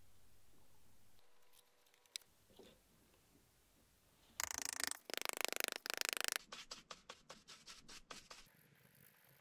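A paintbrush scratching back and forth over a 3D-printed knife pattern in a sand-casting flask, spreading white parting powder. There is a dense run of brushing for about two seconds midway, then separate quick strokes, about five a second.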